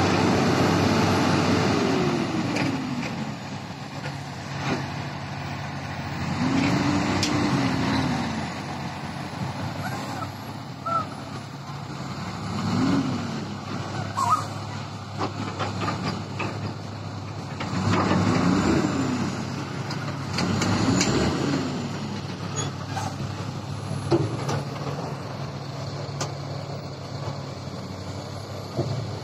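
Heavy diesel engines of a dump truck and a Komatsu PC350 excavator working, the engine note dropping at first and then rising and falling again every few seconds, with occasional knocks.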